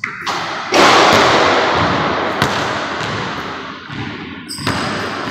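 A basketball shot striking the rim and backboard with a loud bang about a second in, the sound echoing through a large gym, followed by the ball bouncing on the hardwood floor.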